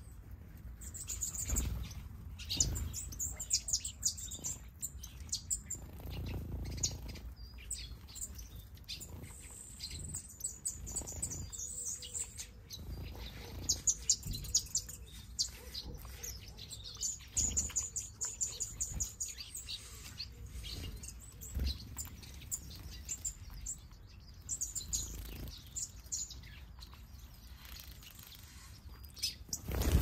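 Small aviary finches, a mixed flock of zebra finches, goldfinches and other waxbills, chirping and twittering over one another in short high calls throughout. Near the end comes a flurry of wingbeats as several birds take off together.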